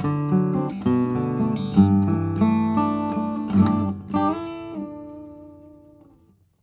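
A 2008 Montuoro slope-shoulder 12-fret dreadnought acoustic guitar, with Brazilian rosewood back and sides and an Adirondack spruce top, is played fingerstyle. A run of picked notes ends on a final chord a little over four seconds in, which rings out and fades to silence.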